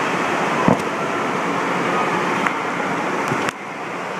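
Steady rush of splashing water, with a single knock about two-thirds of a second in; the level drops suddenly about three and a half seconds in.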